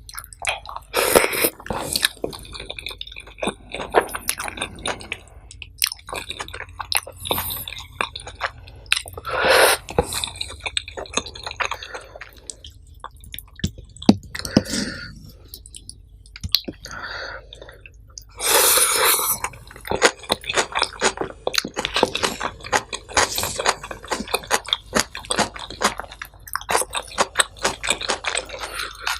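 Close-miked eating of nasi pecel: wet chewing and mouth sounds with many irregular clicks and smacks, and a few louder bursts.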